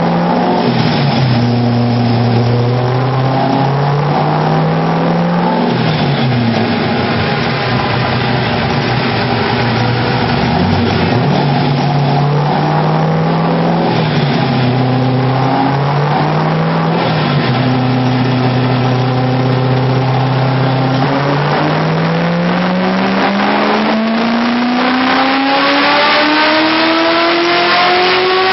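Car engine running under changing revs. It holds steady engine speeds with brief rises and dips, then from about three-quarters of the way in the revs climb in one long, smooth pull.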